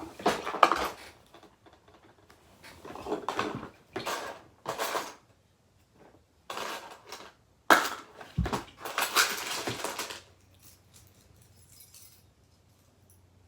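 Rummaging through small hard objects while searching for a part: irregular bursts of clattering and rattling, then quiet from about ten seconds in.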